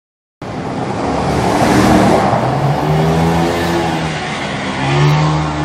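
Army pickup truck's engine running close by as it pulls away, its pitch rising and falling with the throttle. The sound cuts in abruptly about half a second in.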